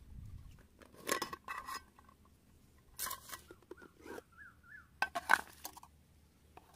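Metal mess tin clattering as its lid and nested inner tray are lifted off and a metal spork is put in: several separate clinks, knocks and scrapes of metal on metal.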